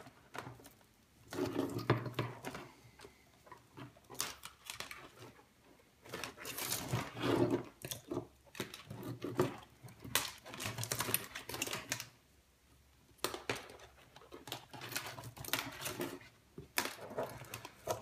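Loose wires being pulled out of a Subaru engine wiring harness by hand: plastic-insulated wires rustling, scraping and ticking against each other and the bench in irregular bursts with short pauses.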